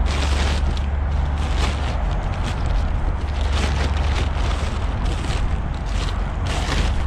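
Blue plastic tarp rustling and crinkling in repeated short bursts as it is handled, over a steady heavy low rumble.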